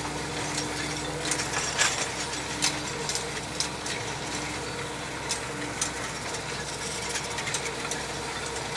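Tractor engine running steadily while driving a Claas rotary tedder, with irregular clicks and knocks from the tedder's rotors and tines.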